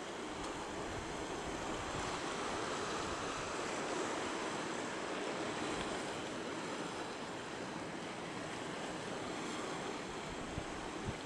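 Steady wind and sea surf noise, with wind rumbling on the microphone.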